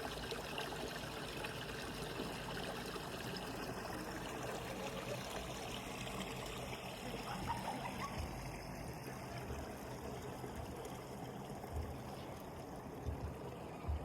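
Steady trickle of running water, like a small stream, with a few short low thumps near the end.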